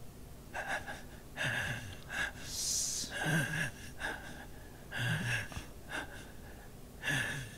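Anime voice acting of a man gasping and grunting in pain, in about five short bursts that fall in pitch, with a sharp hissing breath near the middle.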